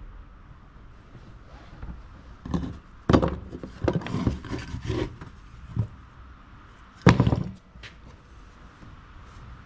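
Cast lead pieces handled and knocked against a wooden workbench top: a run of knocks and scrapes, then one loud thump about seven seconds in.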